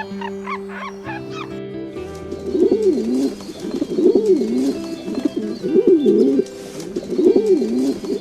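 Pigeon cooing: a series of low, wavering coos starting about two seconds in, over steady background music. A few short high chirps come in the first second or so.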